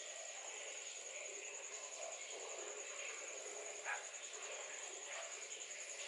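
Steady high-pitched insect chirring, with one short sharp sound about four seconds in.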